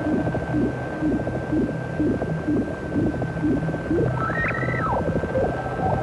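Eurorack modular synthesizers playing an electronic deep-ocean soundscape. Low pulses come about twice a second over a crackling bed, with a steady high tone. About four seconds in, a whale-like call rises, holds and falls.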